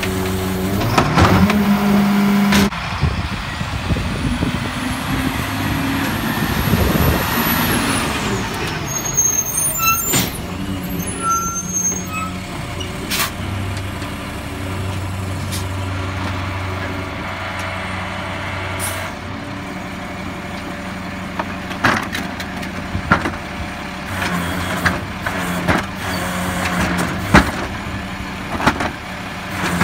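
Freightliner garbage truck's diesel engine running, revving up about a second in as the side-loader's hydraulic cart tipper lifts a cart. Scattered clanks and knocks of the carts and lifter come later.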